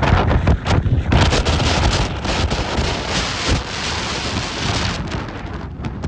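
Rough sea with waves breaking and washing over the shore, a dense hiss of surf that thins out near the end, while strong wind buffets the microphone with low rumbling.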